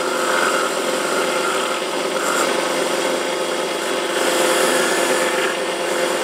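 Small Kamui cue-tip lathe running with a steady hum while a hand-held flat blade scrapes the spinning Kamui Clear cue tip, smoothing it to finish its shape.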